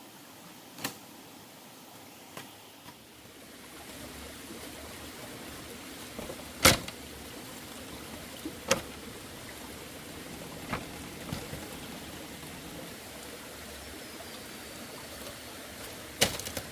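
A series of sharp, isolated knocks at irregular intervals, the loudest about a third of the way in and a quick double knock near the end, over a steady rushing hiss.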